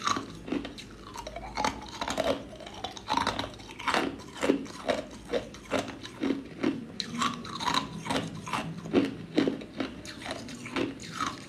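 Clear ice cubes being bitten and chewed: a rapid, uneven run of sharp crunches, a few each second.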